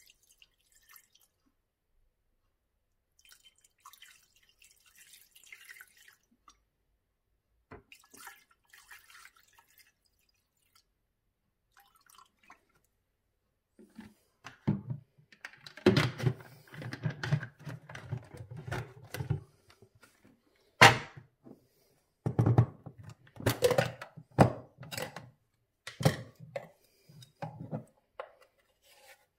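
White vinegar poured from a plastic bottle into a ceramic bowl over a brass tap cartridge, with faint splashing and dripping. Past the middle come louder knocks and handling sounds, the sharpest a single click about two-thirds of the way through.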